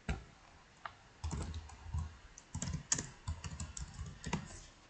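Typing on a computer keyboard: one click at the start, then a quick, uneven run of keystrokes from about a second in until shortly before the end.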